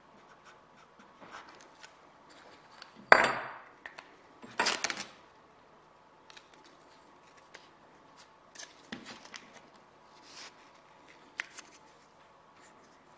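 Short steel-tube offcuts and tape being handled on a work table. There is a sharp metallic clank about three seconds in, a brief clatter a second or so later, then scattered light clicks and taps.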